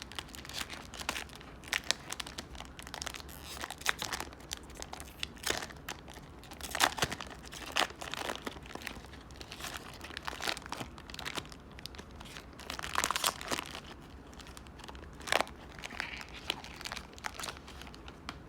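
Plastic trading-card pack wrapper and cards crinkling and rustling in irregular bursts as the pack is handled and opened.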